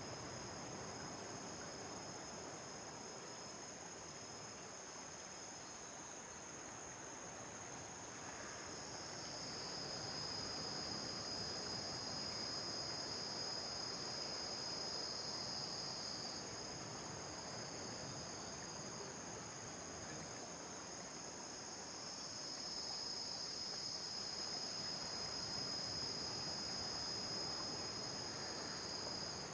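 Steady, high-pitched insect chorus that swells louder twice, about ten seconds in and again past twenty seconds.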